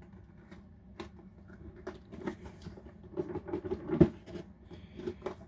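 Hands struggling to open a tight cardboard tablet box: irregular rustling, scraping and small taps, with one sharp knock about four seconds in.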